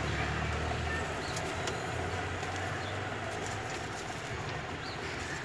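Swivel office chair being spun round, with faint rustling of its plastic wrapping and a few light clicks over a steady low hum.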